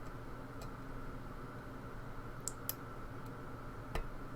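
Lock pick and tension wrench working the pins of a pin-tumbler challenge lock: a few faint, scattered clicks as pins are lifted, over a steady low hum.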